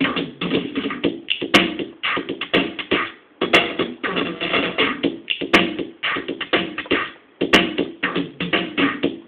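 Akai XR10 drum machine playing a looping drum pattern that repeats about every two seconds, with a sharp click at the start of each loop. Its drum sounds are being circuit-bent by a fingertip bridging contacts around the sound EPROMs.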